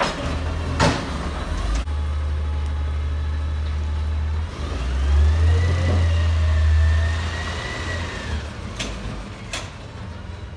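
CNG-powered Labrie ZR side-loader garbage truck pulling away and accelerating, its engine swelling with a rising whine in the middle, then fading as it drives off. There is a sharp click about a second in and two brief clicks near the end.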